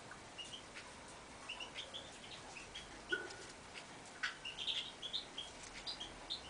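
Goldfinch × canary hybrid giving short, scattered chirps and twittering notes, with a denser run of notes about four to five seconds in. A few faint clicks fall between the notes.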